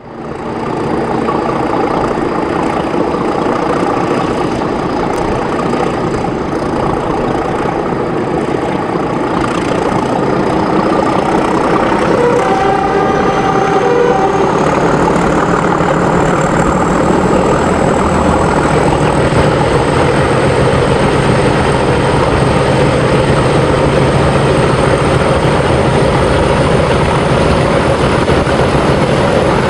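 Class 31 diesel locomotive's English Electric 12SVT V12 engine working hard under full power, heard close up from the train. A thin high whistle rises slowly in pitch through the second half, and the engine grows louder and fuller as the train runs into the tunnel.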